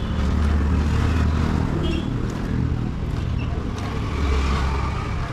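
A motor vehicle engine running, a low steady hum that swells twice.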